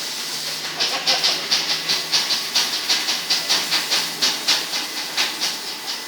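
Touchless car wash machine's high-pressure water spray hissing in rapid, even pulses of about four a second, after a second of steady hiss.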